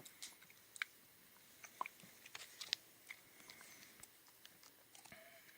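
Faint, scattered clicks and light taps of a small coiled 3.5 mm mini-jack aux cable being handled, at uneven intervals.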